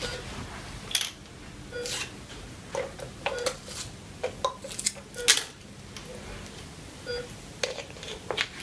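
Plastic water bottle being handled: a scattered series of short clicks and crinkles from the bottle's thin plastic and its screw cap being worked open and shut.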